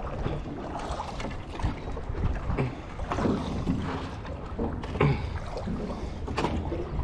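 Splashing and knocking of a small rowboat being paddled with a wooden plank, with wind rumbling on the microphone.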